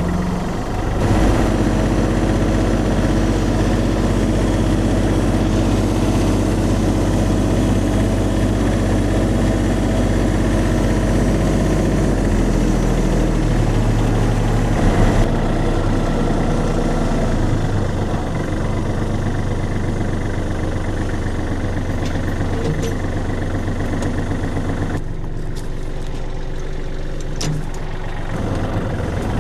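Tractor-backhoe's diesel engine running steadily. It picks up about a second in and settles lower and quieter a few seconds before the end.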